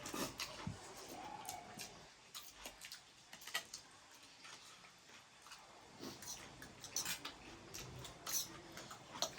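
People eating: scattered soft clicks and smacks of chewing and mouthfuls of noodles, irregular and fairly quiet.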